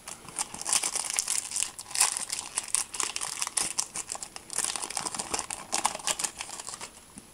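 Foil wrapper of a Panini Adrenalyn XL booster pack crinkling and tearing as it is ripped open by hand: a dense run of sharp crackles that quietens near the end.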